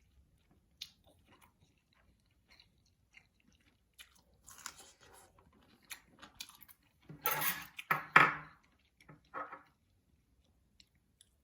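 A person chewing and eating food close to the microphone: scattered small wet mouth clicks, with the loudest chewing sounds coming in a cluster about seven to eight and a half seconds in.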